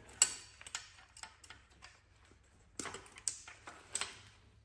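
Scattered sharp metallic clicks and taps of hand tools at work, the loudest about a quarter second in, from old pliers pulling safety wire off an engine's main bearing caps.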